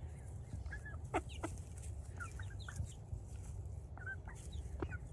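Small flock of backyard hens clucking softly: short, scattered clucks, several in a row about a second in and a few more near the end.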